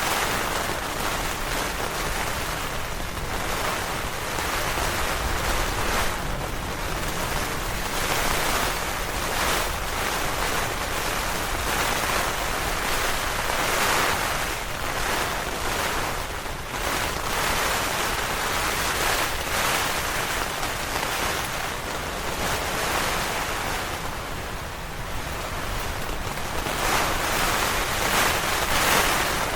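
Heavy rain falling on a tent, with gusting wind making a steady rushing noise that swells and eases every few seconds.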